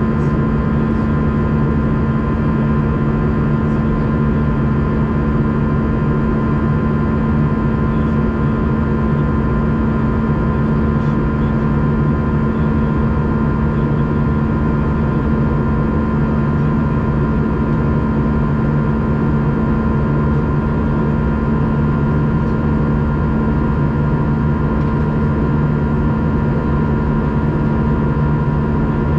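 Cabin noise of an Airbus A320 in flight: the steady drone of the engines and rushing air, with several steady humming tones held throughout.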